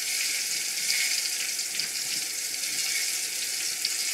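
Mushroom-filled rice paper wraps deep-frying in hot oil: a steady sizzle with small crackles.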